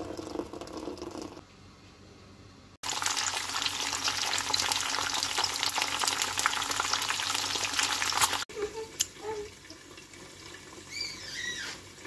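Eggs frying in a pan with tomato and green pepper, sizzling loudly with many small pops for about five seconds, starting and cutting off abruptly.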